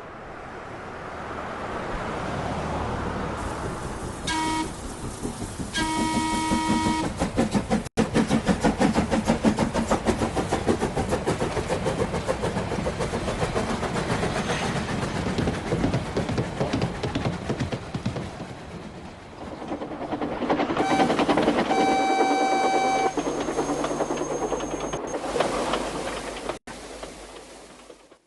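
A train approaching and passing, sounding its horn twice in short blasts. Its wheels then clatter rapidly along the rails for about ten seconds, and a longer horn blast comes near the end.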